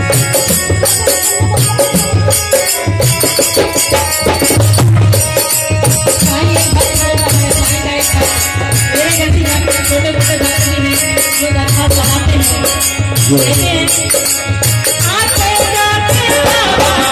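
Instrumental interlude of a Hindi devotional bhajan: a steady drum beat with shakers over held melodic notes, with a wavering melody line coming in near the end.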